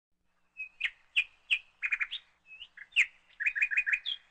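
A bird chirping in a quick series of sharp, high chirps, ending in a rapid run of four notes.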